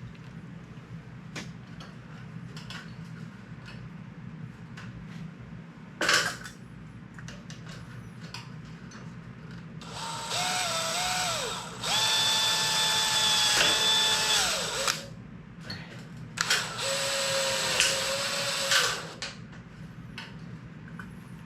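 Power drill driving screws in two runs, its motor whining at a steady pitch: a long run starting about ten seconds in and a shorter one about sixteen seconds in. A single sharp knock about six seconds in.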